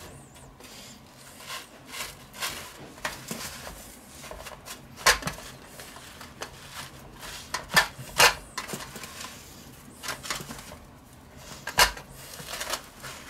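Hands pressing panko breadcrumbs onto a breaded cutlet in a stainless steel tray: soft crunching and rustling of the crumbs, with a few sharp clicks and knocks against the metal tray, the loudest about five and eight seconds in and again near the end.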